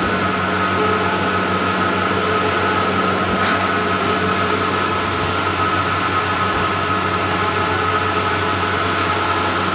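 Bluewin large-format outdoor banner printer running: a steady mechanical whir and hum with several fixed tones, holding level throughout.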